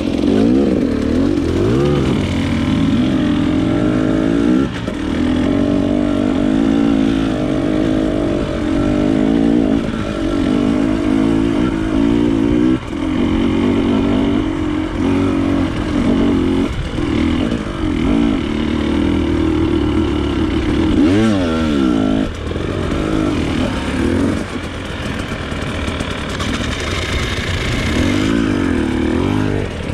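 Off-road motorcycle engine being ridden, its pitch rising and falling over and over as the throttle is opened and eased, with brief dips where the throttle is shut.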